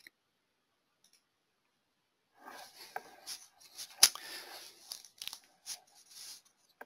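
Irregular rustling and crinkling noises with scattered sharp clicks, the loudest click about four seconds in. The first two seconds or so are near silence.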